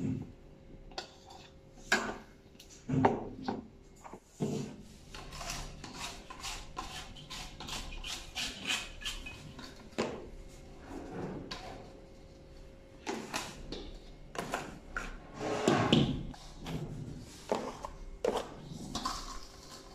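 Stainless steel mixing bowl being handled and tipped over a metal baking tray as cake batter pours out: irregular knocks, clicks and rubbing, over a faint steady hum.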